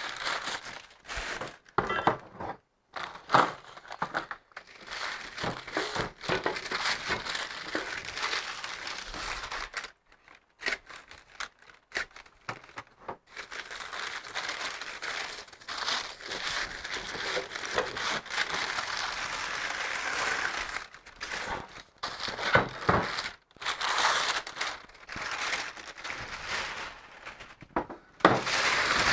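Packing material crinkling and rustling in irregular handfuls as parts are unwrapped and pulled out of a well-packed shipping box.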